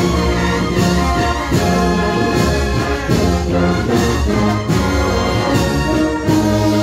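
Andalusian Holy Week processional band (agrupación musical) playing a slow march: trumpets, cornets and trombones hold sustained chords over regular drum strikes.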